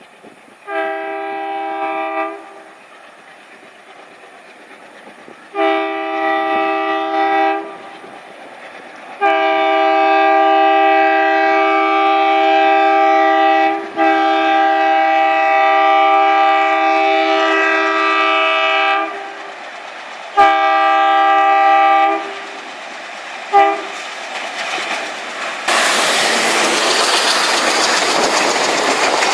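Indian Railways locomotive horn sounding a chord of several tones in five blasts: a short one, a longer one, a long held blast of about ten seconds, another, and a brief final toot. Near the end, the loud rush and rattle of the train passing close by takes over.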